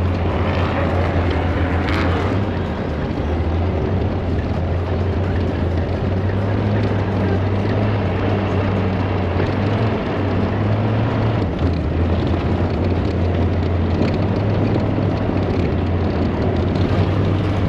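Bulldozer engine running steadily, a deep drone that shifts pitch briefly about ten seconds in.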